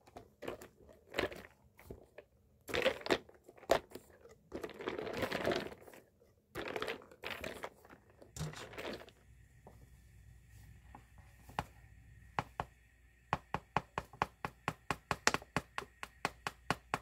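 A straw stirring ice in a strawberry latte in a glass jar, in several rustling bursts. About ten seconds in, a mesh sieve of whole-wheat flour is tapped to sift it, in a quick run of sharp clicks, about three a second.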